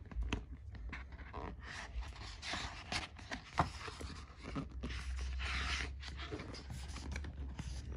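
Paper pages of a picture book being turned and smoothed open by hand: a run of short rustles and scrapes with a few light ticks, and a longer brushing hiss about five seconds in.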